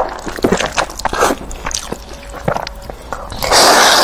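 A person eating instant noodles: quick wet chewing clicks and mouth smacks, then a long loud slurp of noodles near the end.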